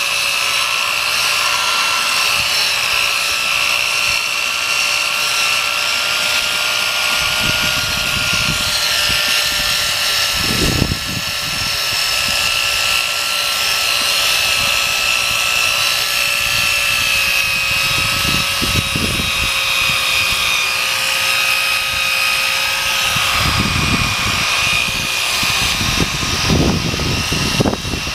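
Electric drill running steadily with a whine, spinning a foam sanding disc against a plastic headlight lens: the fine 3000-grit wet-sanding stage of a headlight restoration. A rougher scrubbing sound comes and goes as the pad works the lens.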